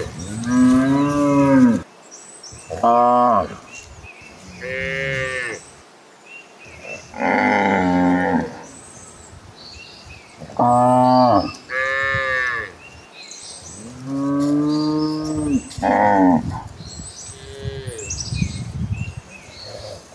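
Cattle mooing repeatedly: about nine drawn-out calls of around a second each, with short gaps between them and the pitch varying from call to call.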